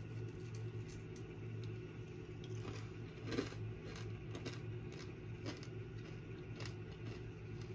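Faint crunching of a mouthful of crunchy toasted coconut granola being chewed, a handful of short crisp crunches spread through, over a steady low hum.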